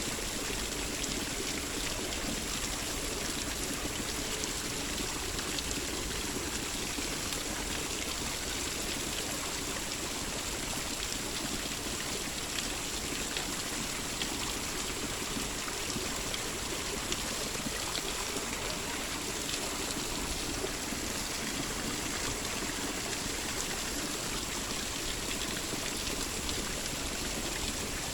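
Running water, a steady splashing flow that stays even throughout.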